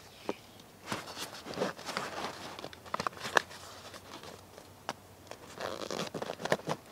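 Close-up rustling and crinkling, broken by irregular sharp clicks and snaps.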